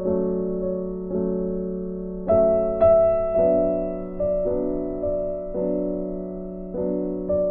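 Background music: a slow, gentle piano piece, a new chord struck about every second and left to fade.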